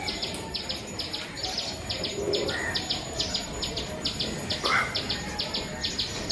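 A small songbird, the one called fista, calling a sharp high chirp over and over, about two to three a second, with a few fainter lower bird notes in between.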